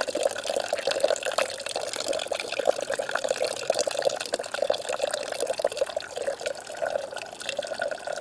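A thin, steady stream of cold water poured from above into a steel bush pot of just-boiled cowboy coffee, splashing into the liquid. The cold water shocks the hot coffee so the grounds settle.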